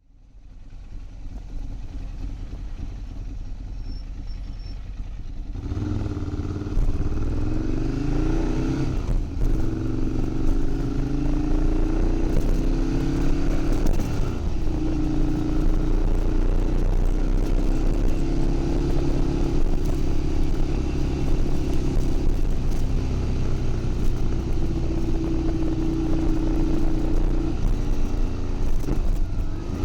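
Ducati Monster 696's air-cooled L-twin running on a straight pipe with no silencer, getting louder about six seconds in and then revved in quick blips a few times, the pitch jumping up and dropping back each time.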